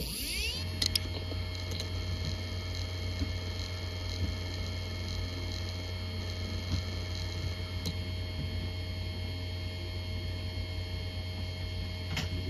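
Western Digital Scorpio Blue WD800BEVT 2.5-inch laptop hard drive spinning up with a rising whine, then running at speed with a steady whine and a low hum. A couple of head clicks come about a second in.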